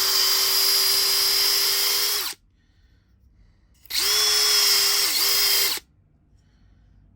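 Drill spinning a copper pipe cleaner attachment (a battery terminal cleaner brush): a steady whine for about two seconds that stops, then a second run of about two seconds with a brief dip in speed near its end.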